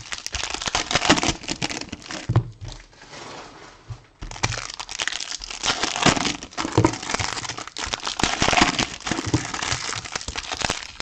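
Plastic wrapping on trading card packaging crinkling and tearing, an irregular crackle that goes quieter for a moment about two seconds in.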